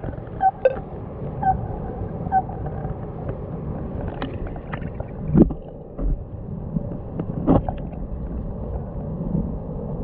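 Muffled, steady rush of flowing stream water heard through an underwater camera housing, with a few knocks, the loudest about five and a half seconds in and another about seven and a half seconds in, and a few short faint blips in the first two and a half seconds.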